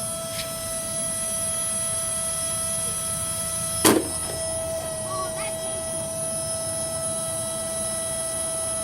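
Shark Rotator vacuum cleaner motor running with a steady whine while weighed down with weights, in an attempt to burn out the motor. A single sharp knock comes about four seconds in.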